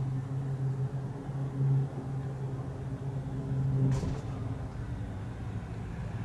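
Steady drone of propeller aircraft engines from a formation of three planes passing overhead. There is a sharp click about four seconds in, after which the drone is weaker.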